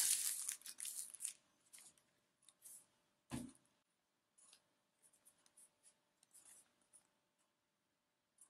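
Clear plastic bag crinkling and a cardboard mouse box being handled, rustling most densely in the first second. A soft knock about three seconds in, then a few small scattered rustles.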